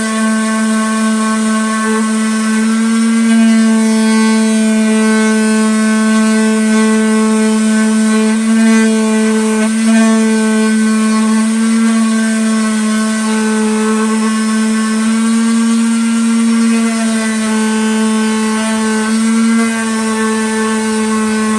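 Electric sander running steadily against an ash wood round, a constant motor whine with many overtones that swells and dips slightly every few seconds.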